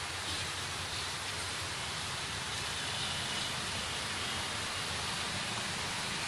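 Steady, even outdoor ambient noise: a hiss-like wash of a city scene with no distinct events standing out, and a faint thin high tone now and then.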